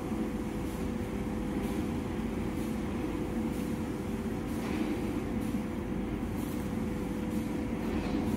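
Toilet-paper log saw machine running steadily: a dense low mechanical rumble with a steady hum, and a faint swish repeating about once a second.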